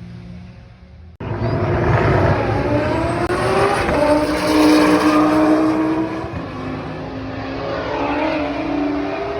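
Race car accelerating hard, its engine note climbing in pitch over several seconds. The loud engine sound cuts in abruptly about a second in, replacing a quieter steady engine hum.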